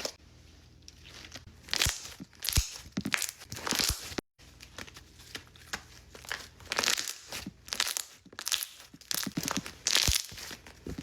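Thick, glossy slime being kneaded and stretched by hand as activator is worked in to reactivate it, giving irregular sticky crackling and tearing noises.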